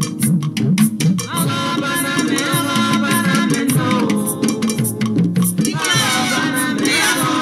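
Music with a steady, quick percussion beat and a moving bass line; a singing voice comes in about a second in.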